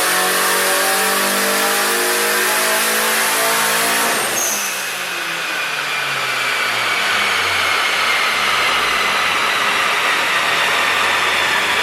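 Turbocharged car engine running, its pitch falling steadily as the revs come down.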